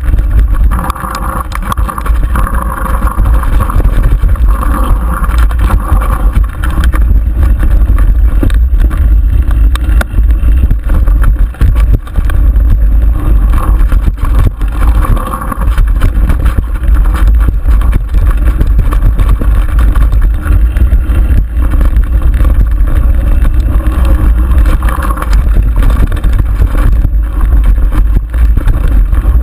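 Mountain bike rolling fast down rough dirt singletrack, heard from a handlebar-mounted camera: a constant heavy rumble on the microphone with many quick rattles and knocks as the bike goes over the bumpy trail.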